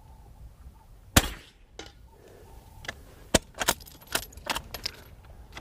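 A single .22 Long Rifle shot from a bolt-action rifle about a second in, with a fainter knock about half a second later. This is followed by a run of short sharp metallic clicks as the bolt is worked.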